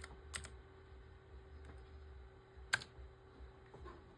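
A few separate keystrokes on a computer keyboard: two quick clicks at the start and one sharper click a little under three seconds in, over a faint steady hum.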